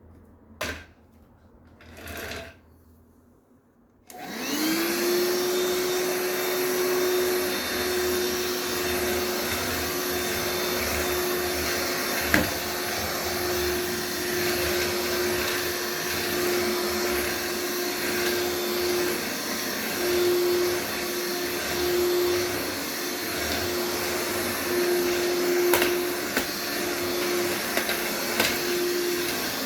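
VC-H71 cordless stick vacuum cleaner switched on about four seconds in, its motor whine rising quickly and settling into a steady hum with a rushing of air, then running on while vacuuming. Two brief handling sounds come before it starts, and a sharp click partway through.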